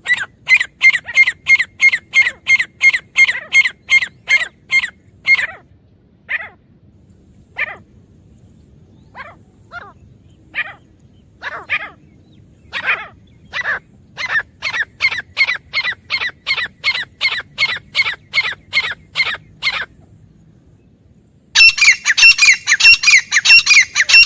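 Grey francolin calling: a rapid run of sharp repeated calls, about four a second, then a few scattered single calls before a second fast run. About 21 seconds in, a louder, denser run of calls starts abruptly.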